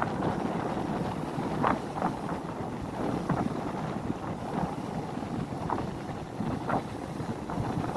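Wind buffeting the microphone in uneven gusts, a rough, noisy rush with brief flare-ups.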